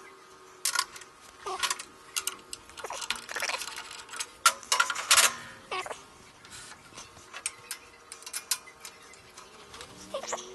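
Irregular metallic clicks and clinks of tools and steel parts being handled on a lathe bed, some ringing briefly, with a louder flurry about halfway.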